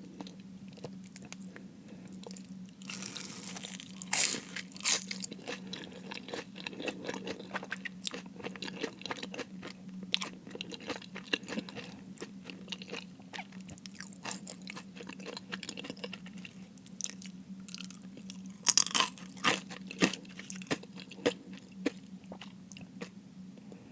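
Close-miked crunching bites into crispy fried food, with chewing in between. The loudest crunches come about four seconds in and again a little before twenty seconds.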